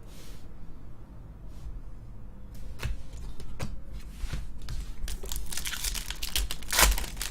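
Trading-card pack wrappers crinkling and tearing as cards are handled: scattered clicks and rustles from about three seconds in, growing into dense crinkling that is loudest near the end.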